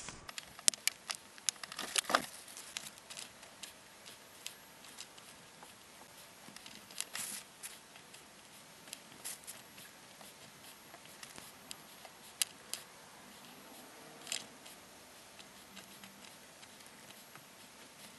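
Scattered small clicks, taps and light rustles of hands handling miniature-painting things (paint pots, brush, model) on a tabletop, with a cluster of sharper clicks in the first two seconds and sparse single taps after.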